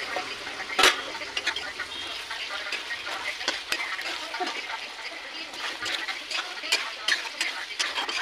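Chicken and potato curry sizzling in an open metal kadai, with a sharp clink about a second in and scattered clicks of a spatula against the pan as the pieces are stirred near the end.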